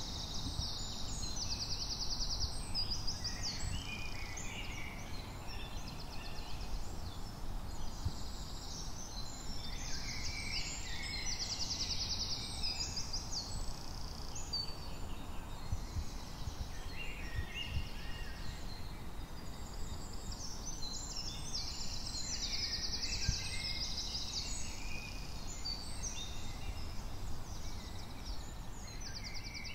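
Woodland songbirds singing, a mix of phrases with fast trills recurring every few seconds, over a low steady rumble.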